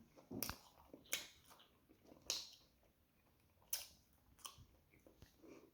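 A person chewing food with the mouth close to the microphone: faint, with a few scattered wet clicks and smacks.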